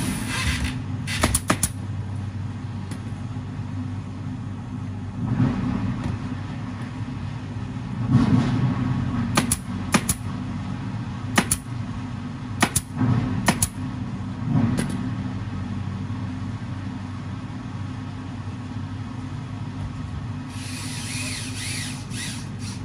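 Pneumatic upholstery staple gun firing staples into a fabric-covered cushion frame: about eight sharp single shots at irregular intervals, two about a second in and the rest between about nine and fifteen seconds in. Under them an air compressor hums steadily, and a hiss of air comes near the end.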